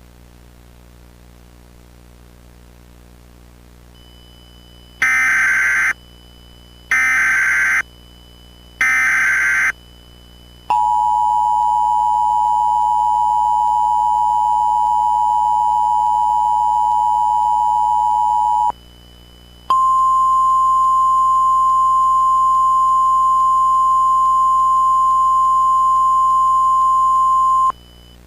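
Emergency Alert System tones for a tornado warning: three short bursts of SAME header data, then the two-tone EAS attention signal held steady for about eight seconds. After a brief gap comes the single steady NOAA Weather Radio warning alarm tone for about eight more seconds.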